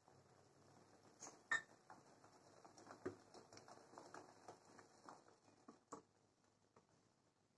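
Faint stirring in a steel pot of freshly curdled milk: a metal spoon scraping and lightly knocking against the pot in irregular clicks, the sharpest clink about one and a half seconds in.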